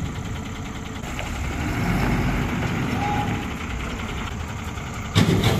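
Ashok Leyland truck's diesel engine running as the truck pulls out of a shed and drives slowly past. A sudden louder burst comes near the end.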